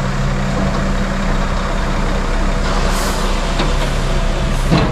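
Concrete mixer truck's diesel engine running steadily as the truck is maneuvered into position for the pour, with a short loud burst just before the end.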